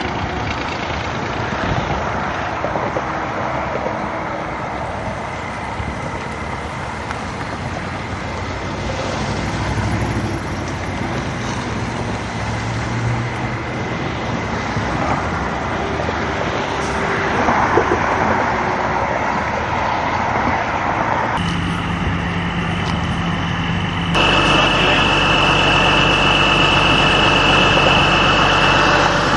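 Freightliner heavy wrecker running with road and traffic noise as it moves along the roadside carrying a damaged arrow-board sign on its boom. Near the end the sound jumps to the truck idling close by, louder and steady, with a held high whine over it.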